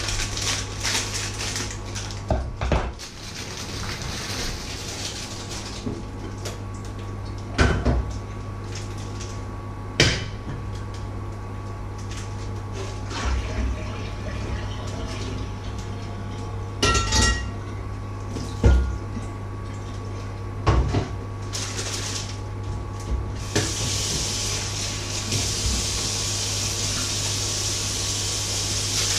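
Kitchen work: scattered knocks and clatter of pots, dishes and utensils over a steady low hum. Water then starts running from a tap a few seconds before the end.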